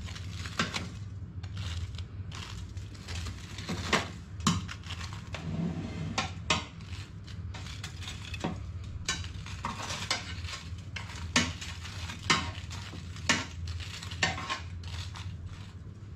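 Metal tongs clicking and scraping against an air fryer's basket and rack as breaded hot dogs are turned over: irregular sharp clicks, about one a second.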